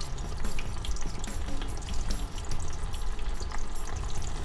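Water at a rolling boil in a stainless steel saucepan, bubbling and crackling steadily.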